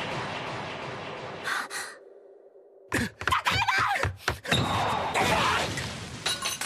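Cartoon action sound effects: the noise of a crash fading out, a moment of near-quiet with a faint low hum, then a flurry of sharp hits and a shout of a name.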